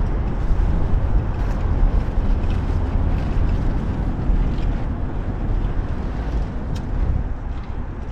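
Wind buffeting an action camera's microphone while riding a bicycle through city traffic: a steady deep rumble with street and car traffic noise, and a faint click about seven seconds in.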